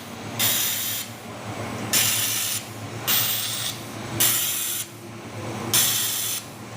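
Battery-pack laser welding machine at work: five sharp bursts of hiss, each about half a second long, come roughly once a second over a steady low machine hum.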